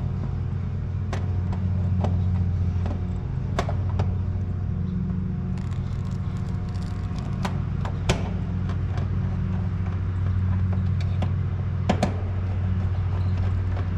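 Outdoor air-conditioning unit running with a steady low hum, with scattered sharp clicks and taps from hands and tools handling the wiring in its electrical panel.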